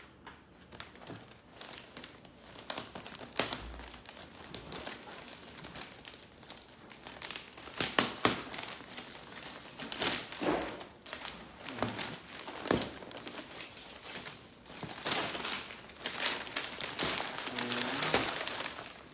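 Gift-wrapping paper crinkling and crumpling in irregular bursts as a present is unwrapped by hand, loudest about halfway through and again near the end.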